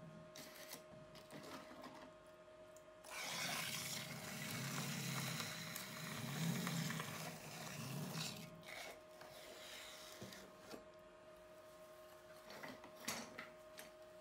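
Electric potter's wheel running with a steady motor hum, while wet hands and a sponge rub against the base of a clay pot spinning on the wheel head, a scratchy rubbing from about three seconds in that stops after about five seconds. A few light knocks near the end.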